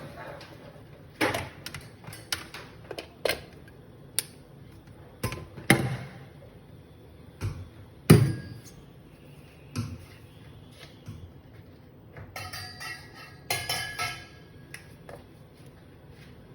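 Irregular knocks, clicks and clinks of hard objects being handled and set down, with the loudest knock about halfway through and a quick run of ringing clinks later on.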